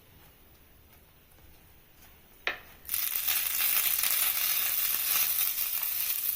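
Butter sizzling in a hot pan with a bun toasting in it: a loud, steady hiss that starts suddenly about three seconds in, after a quiet stretch and one brief tap.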